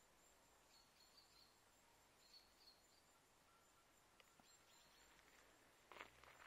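Near silence: faint outdoor ambience with a couple of faint, high bird chirps, and a brief scuffing noise near the end.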